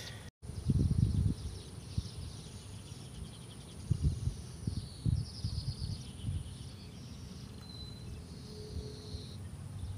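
Outdoor ambience: irregular low gusts of wind rumbling on the microphone, over a steady high insect whine that stops partway through and scattered small chirps.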